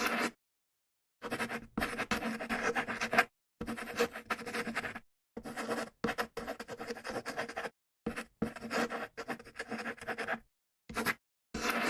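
Writing on paper, scratching in bursts of about half a second to two seconds, each cut off sharply into dead silence before the next.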